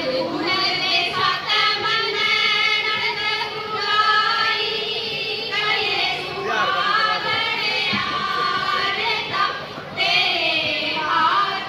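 Women singing a Haryanvi folk song together into microphones over stage speakers, in long held phrases with short breaks between lines.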